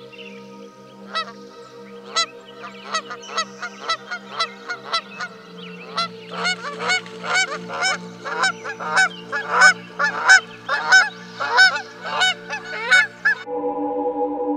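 Waterfowl honking: many short calls, coming faster and louder from about six seconds in, over a steady held musical drone. Near the end the calls stop and sustained organ-like music takes over.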